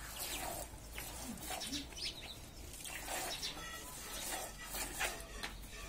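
Hand-milking a cow into a plastic bucket: jets of milk squirting into the pail in quick hissing spurts, about two a second, as the hands pull the teats in turn.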